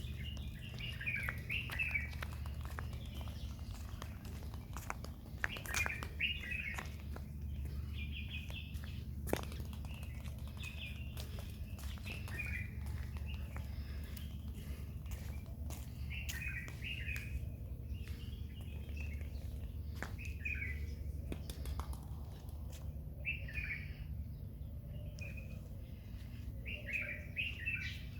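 Small birds chirping in short phrases every few seconds over a steady low hum, with a few sharp clicks.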